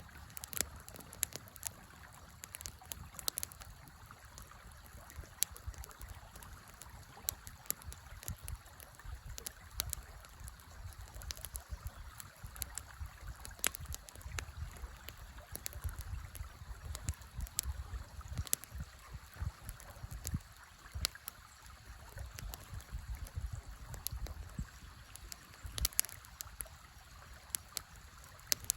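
Wood fire crackling with frequent irregular sharp pops and snaps, over the steady rush of a flowing river.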